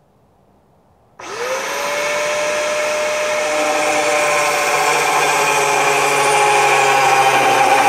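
Angle grinder switched on about a second in, its motor whine rising quickly to speed, then its cutting disc slicing into a steel knife blank, the pitch sagging slightly as the disc bites.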